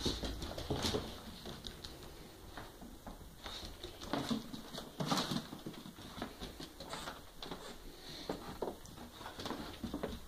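A dog's claws ticking and pattering irregularly on a hardwood floor as it walks about searching.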